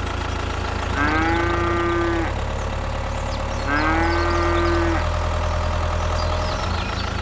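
A cow mooing twice, each moo about a second long, rising at the start and then held, over a steady low engine hum.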